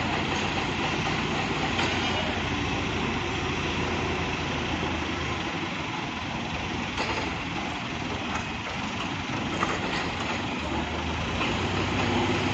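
Heavy vehicle engine running steadily at idle, its low hum easing off in the middle and growing louder again near the end, with a couple of faint knocks.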